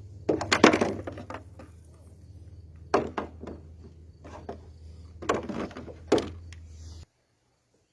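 Wooden knocks and clatter in three short clusters, pieces of wood being handled and set down, over a steady low hum. The sound cuts off abruptly about seven seconds in.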